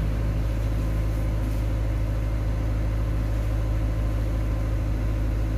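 Steady low droning hum made of several held low tones, unchanging in level.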